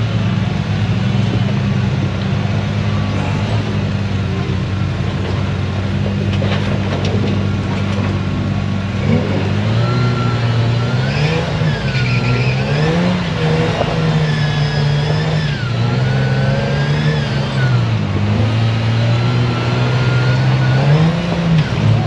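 Off-road rock-crawling vehicle's engine running, steady for the first several seconds, then revving up and down repeatedly as it works over the rocks. A higher whine rises and falls with it in the middle.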